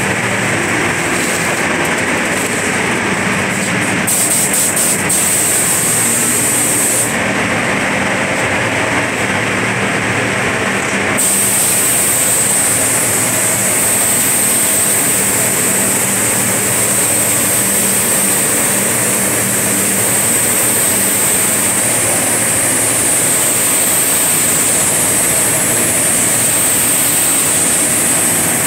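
Gravity-feed paint spray gun hissing steadily with compressed air as it sprays a car panel, over a low steady hum. The hiss changes tone about four, seven and eleven seconds in, then holds steady.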